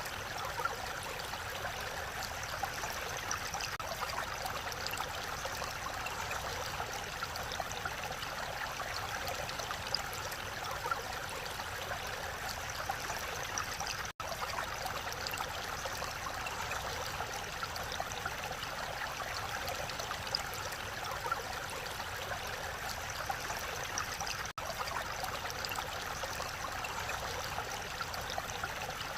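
Mountain valley stream flowing steadily, an even rush of water. The sound cuts out for an instant twice.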